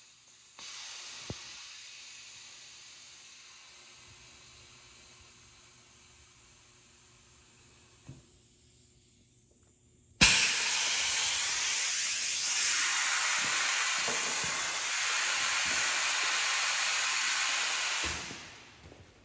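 Compressed air hissing in a pneumatic bait-cutting machine. A fainter hiss runs for the first eight seconds. A sharp clack about ten seconds in starts a much louder, steady hiss of air that lasts about eight seconds, then dies away.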